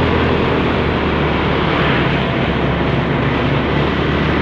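Motorcycle engine running steadily while riding at low speed, heard from the rider's own bike, under a constant rush of road and wind noise.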